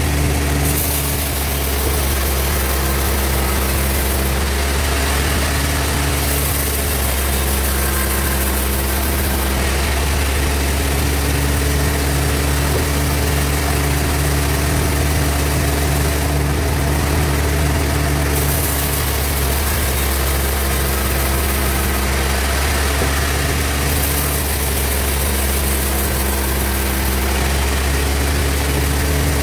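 Sawmill band saw running with a steady low hum, and a high hiss that comes and goes every few seconds as it saws a large trembesi log into slabs.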